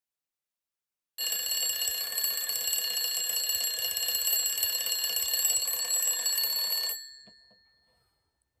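An alarm ringing steadily with a fast rattle for about six seconds, then cut off suddenly, leaving a brief ring-out.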